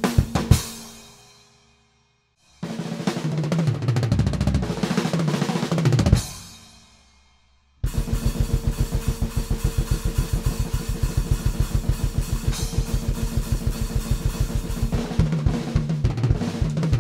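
Eastar five-piece budget acoustic drum kit with cymbals played: a few hits that ring out, a groove ending in a tom fill that drops in pitch down to the floor tom and rings out, then about seven seconds of a fast, even blast beat that breaks into another tom fill near the end.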